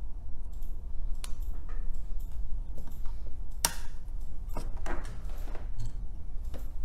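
A few sharp clicks and taps from handling and seating a plastic phone-board holder on a workbench, the loudest a little before the middle, over a steady low hum.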